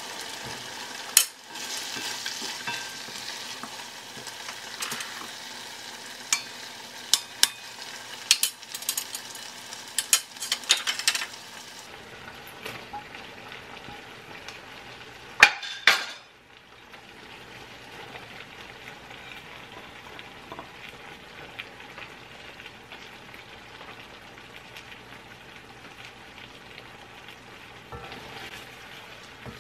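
Chicken stew in sauce sizzling and bubbling in a granite-coated wok, with a utensil clicking against the pan through the first twelve seconds. About fifteen seconds in there is a sharp clatter as sliced bell peppers are tipped in from a plate, and after that a quieter, steady sizzle.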